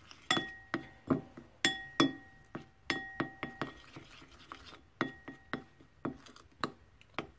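A metal spoon clinking and scraping against a bowl while stirring partly melted chocolate, about two or three ringing clinks a second, with a short lull midway.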